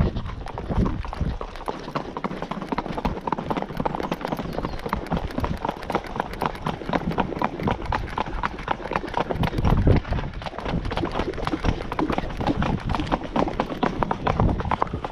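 Icelandic horse's hooves striking a paved road in a quick, steady run of hoofbeats, heard from the saddle.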